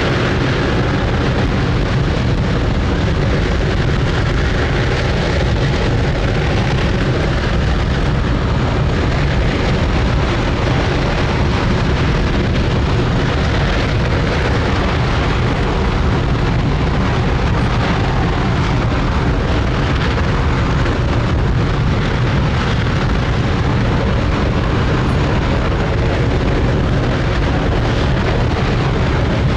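Space Shuttle Main Engine (RS-25 hydrogen-oxygen rocket engine) firing at steady thrust in a static test: a loud, unbroken rumble heaviest in the bass, at a constant level throughout.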